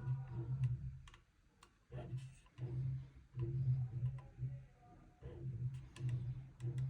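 Anycubic Kobra 3 3D printer's print head moving in a series of short starts and stops, each move a low hum with clicking on top, about seven in a row. It is an extreme noise from the print head, which the owner puts down to the motor, the internal belt or the print head itself.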